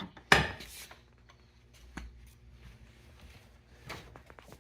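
A sharp metal clank about a third of a second in, ringing briefly, then a fainter knock and a few light clicks near the end, as a steel pipe is handled and set into a bench vise's pipe jaws.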